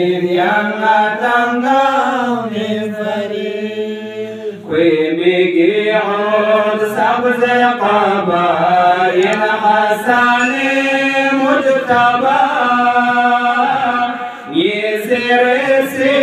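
A man's solo voice chanting a Balti qasida (devotional poem) in long, gliding melodic phrases, with short breaks for breath about four and a half seconds in and again near the end.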